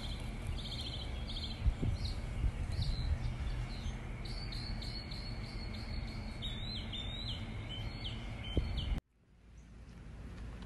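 Wild songbirds singing outdoors: short chirping phrases repeated over and over, over a steady high hum. The sound cuts off suddenly about nine seconds in, and birdsong picks up again near the end.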